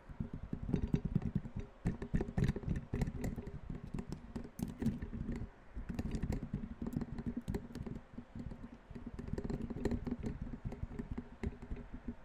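Rapid, irregular tapping, many dull taps a second, with a short pause about halfway through.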